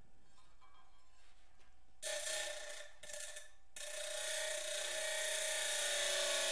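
Abrasive cut-off wheel on a Baldor No. 114 buffer motor grinding the edge of a steel knife blank to profile it, throwing sparks. After a quieter start there is a short burst of grinding about two seconds in, then steady grinding with a steady hum from about four seconds in.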